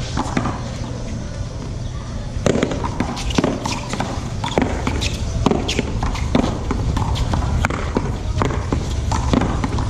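One-wall paddleball rally: solid paddles hitting the ball and the ball smacking off the concrete wall, sharp knocks coming irregularly from about two and a half seconds in, over a steady low rumble.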